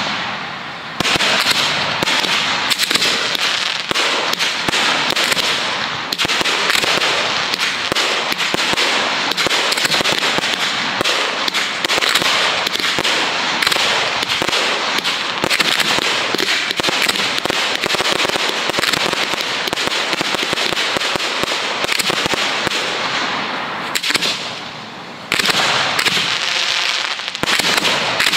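1.3G display fireworks firing a dense, continuous barrage: many sharp reports and crackling bursts overlap. There are brief lulls about a second in and near the end.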